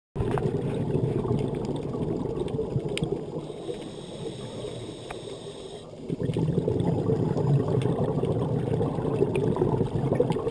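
Muffled underwater noise picked up by a camera submerged with scuba divers: a steady low haze of water sound with scattered small clicks. It eases off for a couple of seconds and comes back louder about six seconds in.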